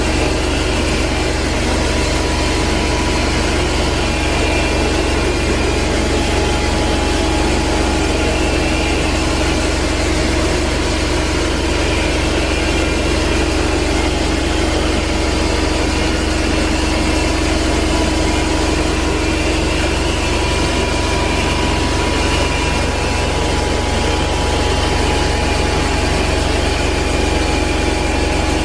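Rotovac 360i rotary carpet-extraction head spinning as it is pushed over carpet, with the extraction vacuum running steadily: a constant machine noise with a steady hum in it.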